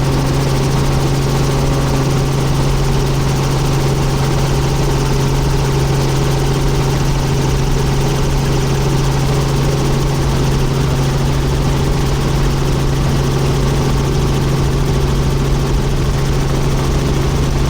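Helicopter engine and rotor running steadily: a constant, even drone with a strong low hum that does not change.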